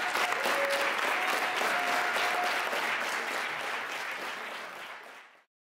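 Theatre audience applauding, the clapping fading out over the last couple of seconds and cutting to silence just before the end.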